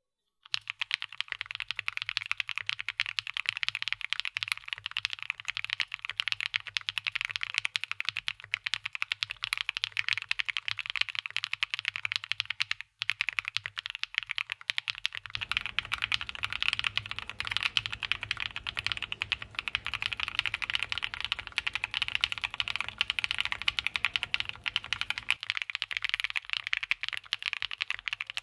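Continuous fast typing on a Matrix Lab 6XV 3.0 Corsa mechanical keyboard with F1 FBB switches (50 g, polycarbonate top housing, nylon bottom housing, POM stem), GMK keycaps and an aluminium plate: a dense run of key clacks, with a momentary break about halfway.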